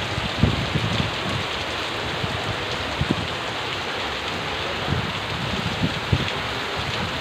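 Heavy monsoon rain pouring down, a dense steady hiss of rain on the ground and roofs, with scattered short low thumps.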